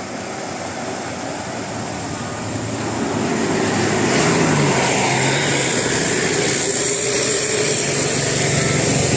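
A bus engine growing louder as the bus approaches, then running steadily close by from about four seconds in.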